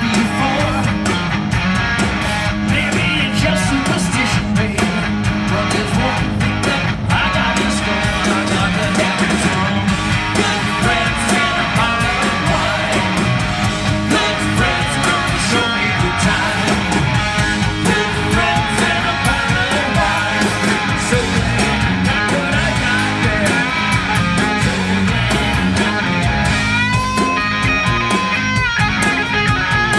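Live rock band playing loud, with an electric guitar lead from a sunburst Les Paul-style guitar over drums. Near the end a held guitar note is bent up and then let back down.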